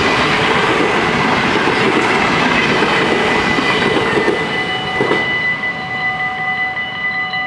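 NS VIRM double-deck electric train passing over a level crossing, its wheels rumbling on the rails until it clears about five seconds in, with a single knock at that point. The crossing's warning bells ring steadily throughout and are heard clearly once the train has gone.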